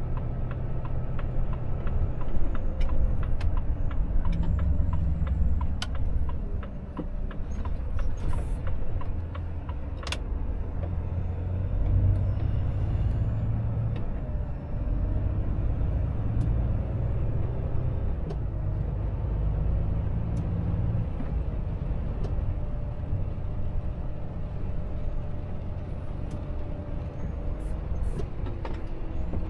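Inside the cab of a Volvo FH truck driving on a wet road: steady diesel engine and road noise, the low engine note shifting up and down in level with load. Scattered sharp ticks and taps sound throughout.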